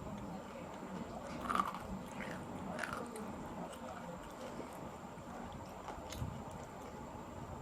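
Close-miked mouth sounds of someone chewing food, with a few short clicks scattered through, the loudest about a second and a half in.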